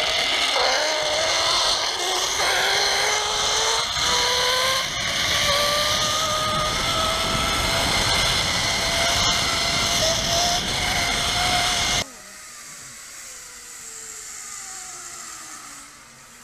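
Zip line trolley running along the cable: a whine that rises steadily in pitch as the rider gathers speed, over a loud rushing noise. It cuts off suddenly about twelve seconds in, leaving a much quieter whine that falls in pitch.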